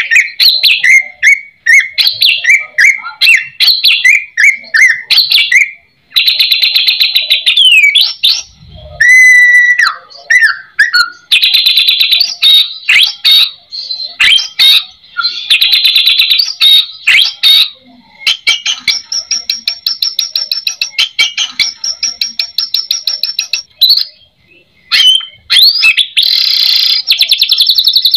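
White-rumped shama (murai batu) singing a loud, varied song packed with mimicked phrases (isian): fast trills and rapid repeated notes with a few whistled glides, broken by short pauses about six seconds in and a little before the end.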